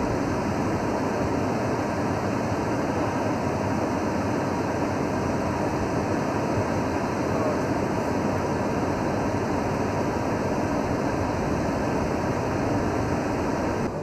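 Steady rumble and hiss of cabin noise inside a moving vehicle.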